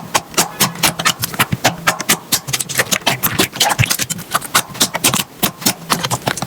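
Slime being squeezed and poked by hand, giving a quick irregular run of wet clicks and pops, several a second.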